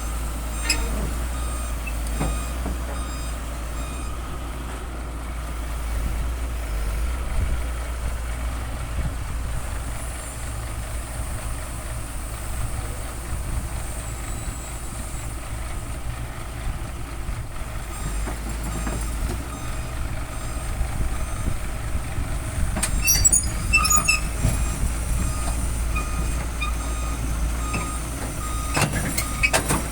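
Heavy excavator engine running with a steady low rumble, with faint repeated beeping above it. About two-thirds of the way through comes a brief cluster of clicks and squeaks, and near the end a couple of knocks.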